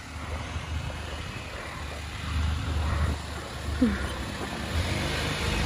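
A 4WD vehicle's engine running with a low rumble on a dirt track, growing louder near the end. There is one short falling squeak about four seconds in.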